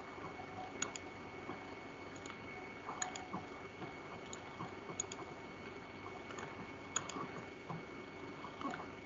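Faint clicks of a computer mouse, several in quick pairs, every second or two, over a low steady hiss with a faint high whine.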